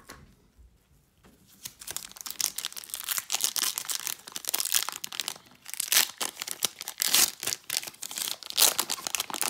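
Shiny plastic wrapper of a 2019-20 Donruss Optic Basketball hobby pack being crinkled and torn open by hand. After a quiet first second and a half, a dense run of crackling and tearing follows.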